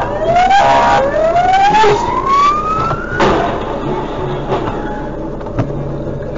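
Emergency-vehicle siren wailing in repeated rising sweeps, cut off about three seconds in by the sharp bang of a car collision. After it, steady traffic noise with a couple of faint knocks.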